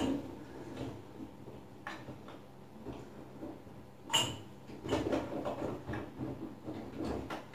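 Dishwasher's wire upper rack, loaded with dishes, being handled and fitted back onto its rails: scattered rattles and clinks, one sharp click about four seconds in, then a run of small knocks.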